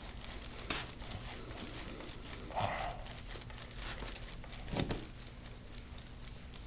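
Faint rubbing and handling sounds of hands-on soft-tissue massage on a patient's back. A short low groan comes about two and a half seconds in, and a dull thump comes near five seconds.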